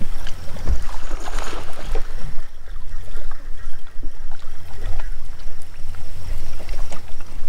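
Steady low rumble of a bass boat sitting on the water, with a few dull knocks.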